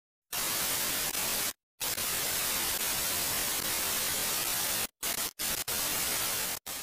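Television static: an even white-noise hiss like a TV with no signal, cutting out briefly several times.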